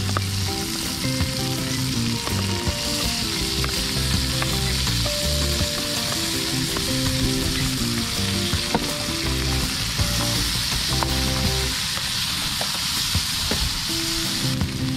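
Chopped onion, garlic, ginger and freshly added tomato sizzling in a small frying pan while a spoon stirs them. The sizzle grows louder about three seconds in and eases just before the end.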